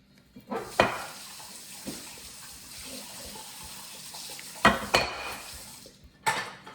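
Kitchen tap running into a sink for about five seconds, with dishes and utensils clattering: a sharp clatter as the water starts, another two as it stops, and one more just before the end.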